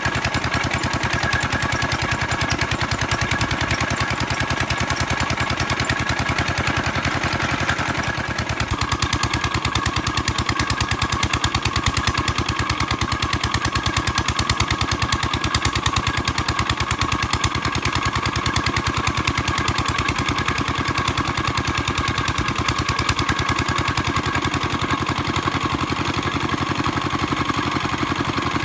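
Small engine running steadily with a rapid, even beat, driving the cable winch of a small oil-drilling rig; its tone shifts slightly about eight seconds in.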